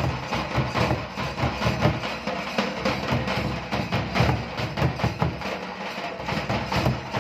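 Nagada kettle drums beaten with curved sticks, together with a strapped double-headed drum, playing a fast, dense dance rhythm. Sharp stick strokes run over deep drum beats.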